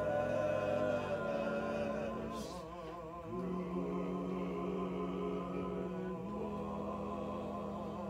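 Male vocal quartet singing unaccompanied in close harmony, holding long sustained chords. There is a short break about three seconds in, then a new chord.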